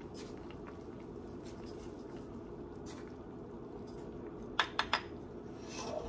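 A pot of vegetable soup boiling with a steady low bubbling while a small wooden spoon stirs in salt. About four and a half seconds in the wooden spoon knocks three times in quick succession, and a brief wooden scrape follows near the end.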